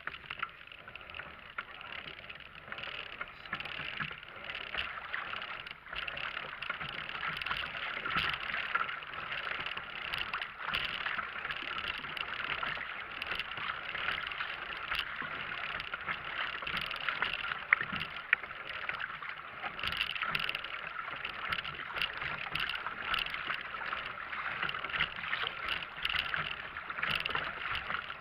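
Steady rush of water rippling and gurgling along a moving kayak's hull, with scattered small clicks and knocks.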